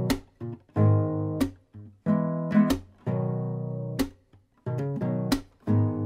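Instrumental music on acoustic guitar: chords plucked in a loose rhythm, each ringing out and fading, with short pauses between some of them.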